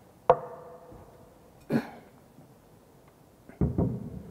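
Ceramic wash basin being handled and turned over on a workbench. A sharp knock about a third of a second in rings briefly, another knock follows just before two seconds, and a cluster of heavier low thumps comes near the end as the basin is set down.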